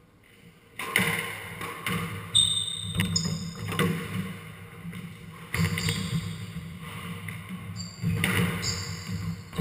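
A squash rally starting about a second in: sharp cracks of the squash ball off rackets and walls every second or so, with sports shoes squeaking on the wooden court floor in several short, high squeaks.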